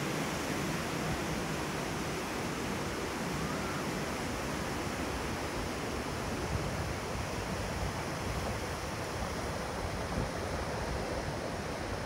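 Pacific Ocean surf washing in over a flat sandy beach: a steady, even rush of breaking waves.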